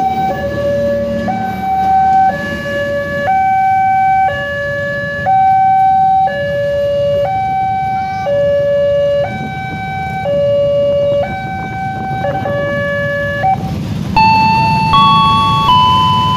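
Railway level-crossing warning alarm sounding a two-tone electronic signal, alternating high and low about once a second, over a low rumble. A little after the middle the two-tone stops, and near the end a short run of different stepped electronic tones plays as the barrier lifts.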